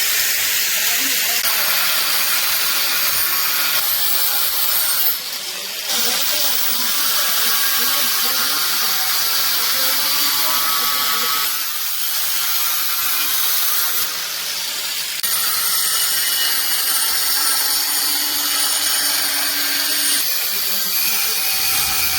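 Power tool working the rusty saw-blade steel, running with a steady high-pitched noise and a faint motor hum underneath. It eases off briefly about five seconds in and again about fourteen seconds in.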